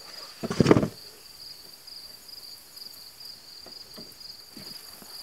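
Crickets chirping, a steady high pulsing trill throughout. A short louder noise comes about half a second in, and a few faint clicks follow later.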